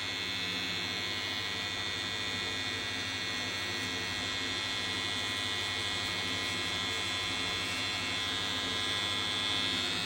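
Electric hair clippers running steadily with an even motor buzz.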